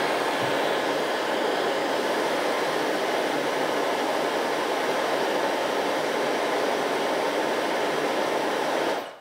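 Hand-held hair dryer running steadily with a loud rush of blown air and motor hiss, switched off and cutting out abruptly near the end.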